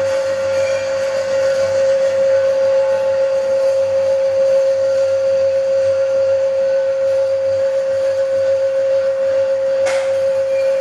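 Metal lathe running while cutting a thread, giving a steady high whine that holds one pitch, with a short sharp click near the end.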